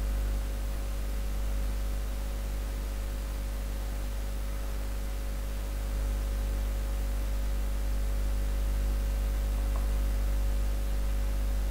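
Steady low electrical mains hum with a faint hiss, without speech.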